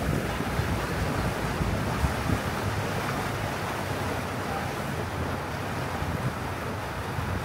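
Steady rush of water along the hull of a moving water taxi, with wind buffeting the microphone.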